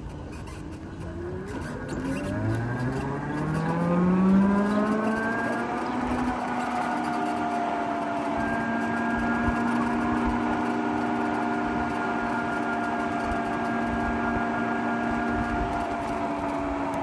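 Electric motorcycle's motor whine rising steadily in pitch over about four seconds as it accelerates, then holding one steady pitch while it cruises, over a rush of wind and road noise.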